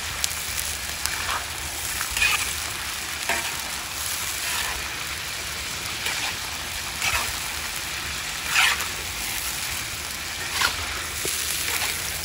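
Chicken pieces deep-frying in oil in a cast iron wok: a steady sizzle, with louder spatula scrapes every second or two as the pieces are stirred.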